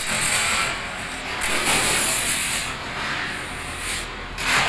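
Large sheet-steel panel scraping as it slides over metal work surfaces, in several hissing scrapes of up to about a second each with short pauses between.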